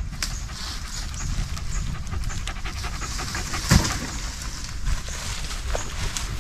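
A small black-and-white hunting dog panting close by, with one sharp click a little past the middle.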